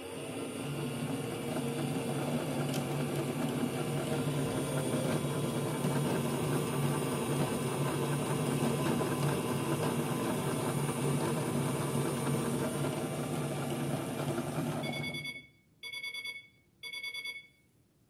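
Theo Klein Miele Softtronic toy washing machine's small electric motor turning the drum with a steady hum. The motor stops about fifteen seconds in, and two short electronic beeps follow.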